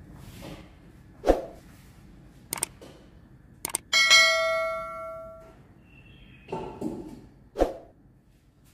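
Subscribe-button sound effect: two quick mouse clicks, then a bell ding about four seconds in that rings out for about a second and a half. A dull knock comes about a second in and another near the end.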